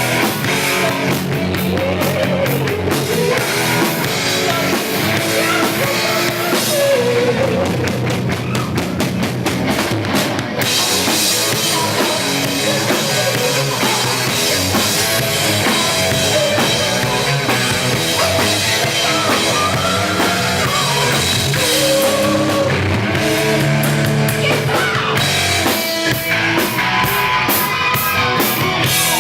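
Rock band playing loudly, with drum kit, bass, electric guitar and singing.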